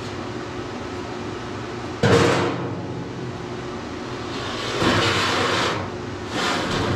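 Steel pieces for the box cabinet's bottom being handled in the shop: a sharp knock about two seconds in, then a longer scraping or sliding noise and a shorter one near the end.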